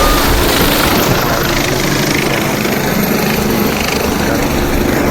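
Loud, steady aircraft noise: a low engine hum under a broad rushing noise.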